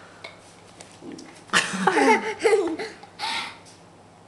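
Laughter: a loud burst about a second and a half in, then a shorter one a little after three seconds.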